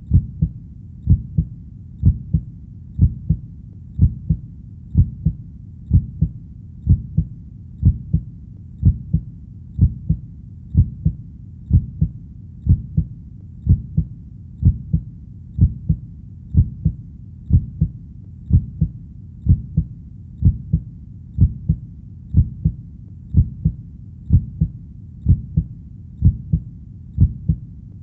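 Heartbeat sound: steady double 'lub-dub' beats, low-pitched, about one heartbeat a second.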